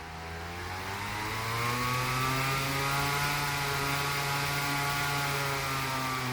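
Unplugged box fan spun backwards by a wind gust, its blades speeding up into a rising whine over the rush of wind, then holding a steady pitch and easing slightly near the end.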